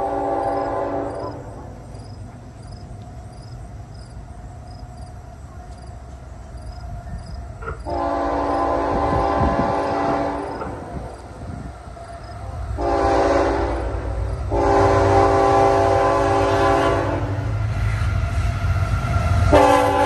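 CSX GE ET44AH diesel locomotive's air horn sounding a series of chord blasts as the train approaches: one ending at the start, long blasts about 8 s and 15 s in with a shorter one just before the second, and another starting near the end. A low rumble of the locomotive and train grows under the horn from about halfway.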